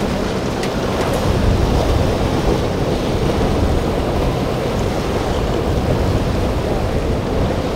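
Steady wind noise on the microphone over the wash of waves and surf.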